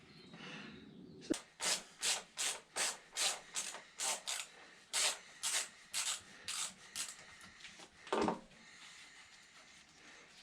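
Rhythmic back-and-forth rubbing or scraping strokes by hand, about two and a half a second for some six seconds, followed by a single knock.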